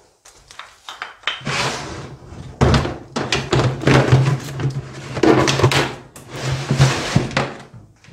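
Clear plastic storage tub of motorcycle parts and cables being pulled from a shelf and rummaged through, with repeated clattering and rustling. A steady low hum sits under it from about a second and a half in to near the end.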